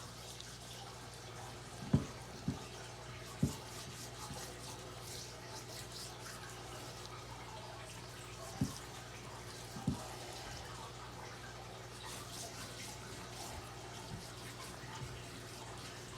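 Hands rubbing seasoning into a raw ribeye steak, making faint rubbing sounds, with five soft low knocks spread through the first ten seconds over a steady low hum.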